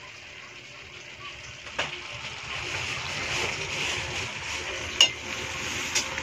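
Mung beans and string beans cooking in a metal pot, a steady sizzle that grows a little louder after about two seconds. A few sharp clicks cut through it, the loudest about five seconds in.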